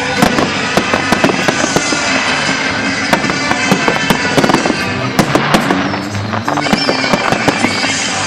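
Fireworks display bursting and crackling in rapid, dense succession, many bangs a second, over loud music playing with the show.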